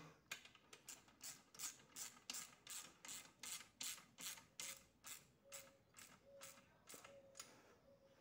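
Small ratchet wrench tightening the bolts of a bench leg, its pawl rasping on each back-stroke in a faint, even rhythm of about three strokes a second that grows weaker toward the end.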